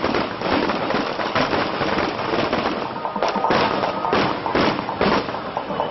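A string of firecrackers going off in rapid, continuous pops, with several louder bangs in the second half.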